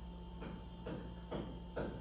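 Faint, regular knocking from renovation work elsewhere in the apartment building, about two knocks a second, starting about half a second in.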